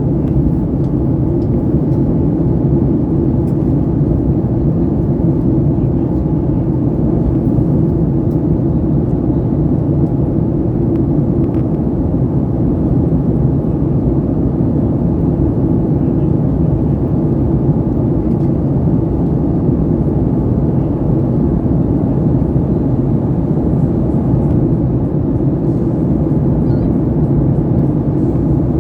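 Steady low cabin rumble inside a Boeing 737 MAX 8 in flight, from its CFM LEAP-1B engines and the airflow over the fuselage.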